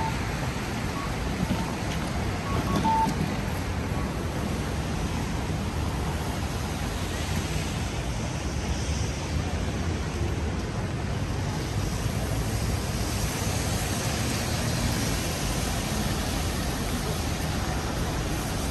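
Rainy city street ambience: a steady hiss of rain and of traffic on wet roads, with a few short faint beeps in the first three seconds.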